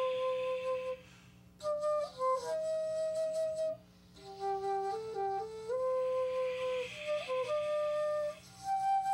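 Keyless side-blown flute playing a slow melody of long held notes that step up and down, with short breaks for breath about a second in and again about four seconds in.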